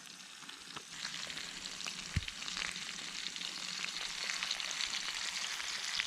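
Pork sausage frying in oil in a pan over a small wood-burning camp stove: a steady crackling sizzle that thickens about a second in. A single low thud a little after two seconds.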